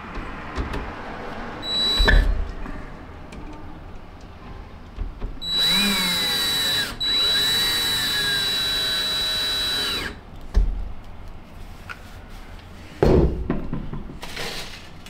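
Power drill boring a hole through wood for a through-bolt. A short blip comes first, then two runs of a few seconds each, the motor's whine sagging as the bit bites and picking up again. Knocks and clatter of handling follow near the end.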